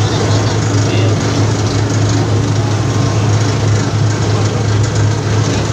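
Clove stripping machine running steadily, its motor giving a constant low hum under a dense mechanical rattle.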